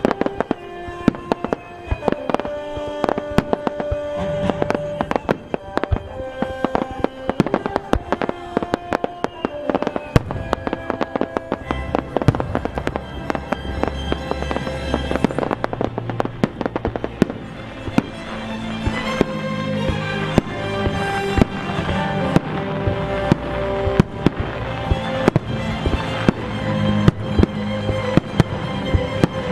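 Fireworks banging and crackling in quick succession over music, with a deeper bass line coming in about twelve seconds in.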